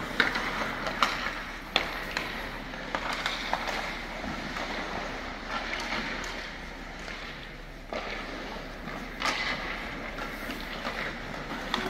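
Ice hockey skates scraping and carving across rink ice, with a few sharp clacks of sticks and puck.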